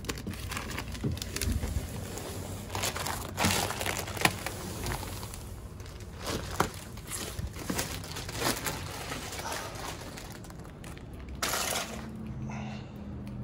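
Thin protective plastic film being peeled off an ice machine's panels and crumpled, crinkling and crackling in irregular bursts, with a louder burst near the end.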